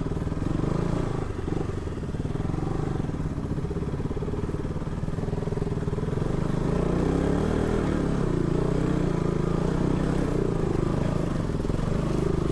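Single-cylinder motorcycle engine running under way, its pitch rising and falling as the throttle is worked over an off-road track.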